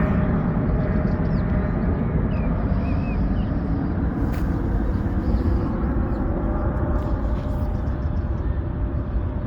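Steady low rumbling noise with a few faint, short high chirps about two to three seconds in.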